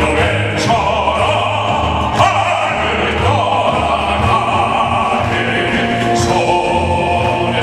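Operatic-style singing with vibrato over a musical accompaniment with a steady bass line.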